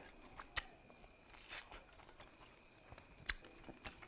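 Quiet eating sounds: a few faint, sharp mouth clicks and chewing noises, spaced apart.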